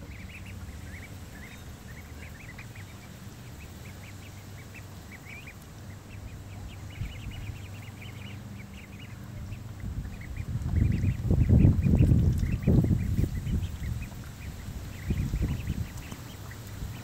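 Ducks calling, with many short high-pitched calls scattered throughout over a steady low hum. A loud low rumble comes in from about ten to fourteen seconds in.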